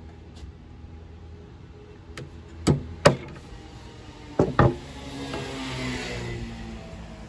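Wooden pieces knocking together: four sharp knocks in two close pairs, followed by a hiss that swells and fades for a couple of seconds, like wood sliding or rubbing.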